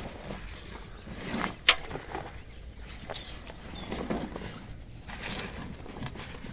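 Gloved hands rummaging through a wet bag, with irregular rustling and shifting of the fabric and one sharp knock about a second and a half in.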